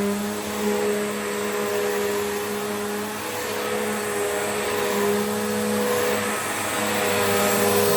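Bissell Powerforce bagless upright vacuum cleaner (model 75Q1-E, rated 1200–1400 W) running steadily while vacuuming carpet, its motor whine and the rush of air joined by the brush bar turning against the pile.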